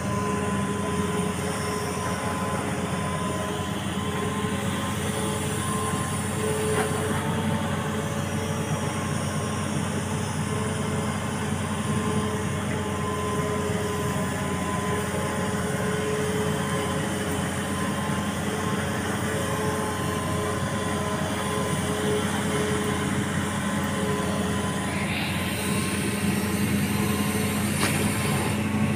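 An engine running steadily, a low even drone with a constant pitch.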